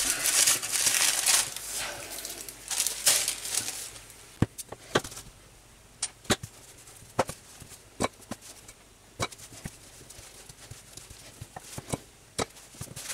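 Sheets of parchment paper rustling and crinkling as they are handled, for about four seconds. Then a series of scattered sharp taps and clicks, a second or so apart.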